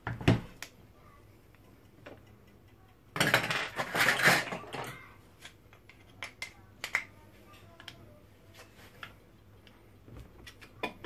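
An electric motor being handled during teardown: a heavy knock just after the start as it is set down on the bench, a scraping metallic clatter lasting about two seconds a few seconds in, then scattered light clicks of metal parts.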